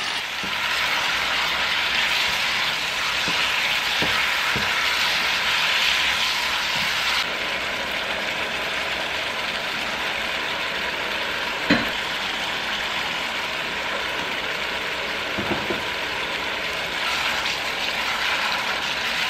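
Beef and vegetables in a thick soybean-paste sauce sizzling in a pot as they are stirred with a silicone spatula, a steady hiss that eases a little about seven seconds in. A single sharp knock comes a little past halfway, and a couple of lighter knocks follow a few seconds later.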